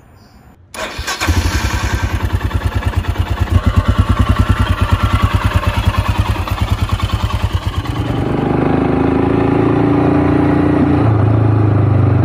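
Royal Enfield Himalayan's single-cylinder engine started about a second in, then idling with an even, rapid pulse. About eight seconds in it gives way to a steadier engine drone as the bike is ridden along.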